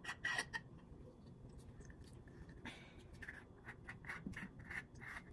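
Faint, irregular clicking and scratching of a small plastic camera part being turned and fiddled with in the hands, with the click of fingernails on it.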